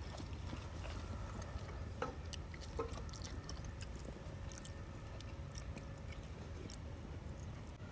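Chewing with small crunchy clicks and a few sharper ticks, over a low, steady rumble.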